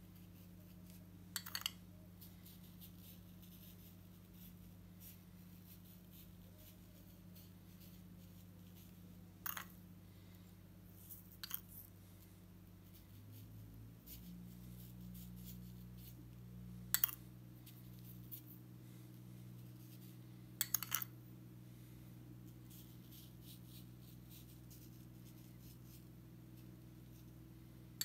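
Metal spoon clinking against a small ceramic bowl as coloured sand is scooped out: short double and triple clinks every few seconds. Under it, a steady low hum that shifts in pitch about halfway through.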